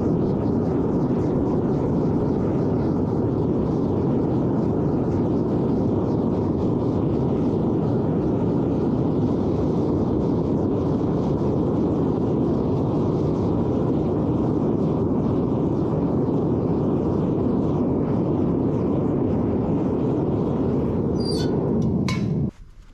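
Propane melting furnace burner running with a steady, even rushing noise, then shut off abruptly near the end. A few sharp clicks come around the shutoff.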